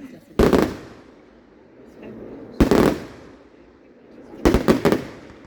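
Fireworks bursting overhead: three loud bangs about two seconds apart, the last a quick cluster of several cracks, each trailing off after the bang.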